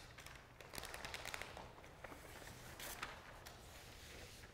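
Faint, scattered rustles of large sheets of newsprint being handled.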